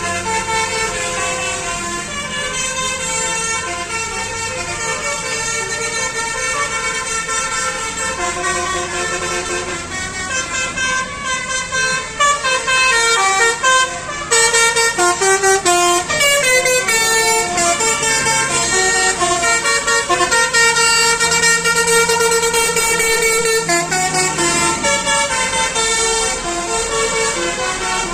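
Basuri telolet musical horns on buses playing tunes as a series of stepped horn notes, several horns overlapping, the melodies busier and faster-changing from about halfway through, over the low running of bus engines.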